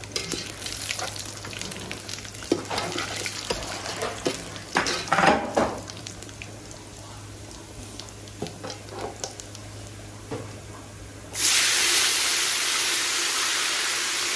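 Whole cumin, cinnamon and bay leaves sizzling in hot oil in an aluminium pot, with a utensil scraping and knocking against the pot as they are stirred. About eleven seconds in, water is poured into the hot oil and a loud, steady hiss sets in at once.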